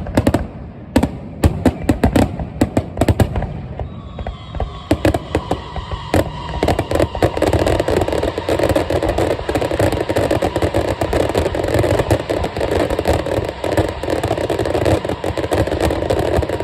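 Fireworks display: a rapid string of sharp bangs and cracks, giving way about six seconds in to a dense, continuous crackling barrage, with a faint whistle setting in about four seconds in.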